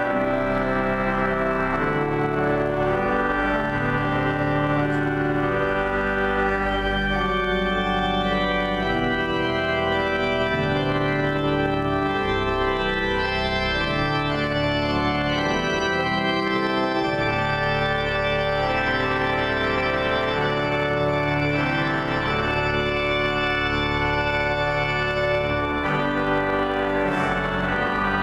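Pipe organ playing a hymn: full held chords over a low bass line, the harmony changing every second or two.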